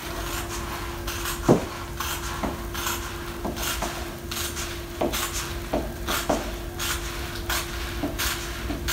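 Scissors snipping repeatedly through a large sheet of fabric, about two cuts a second, as pattern pieces are cut out along traced lines. A faint steady hum runs underneath.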